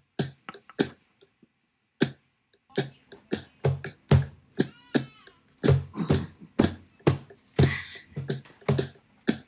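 Cajón played by hand in an improvised, uneven rhythm of deep bass strokes and sharp slaps: a few strokes at first, then busier from about three seconds in.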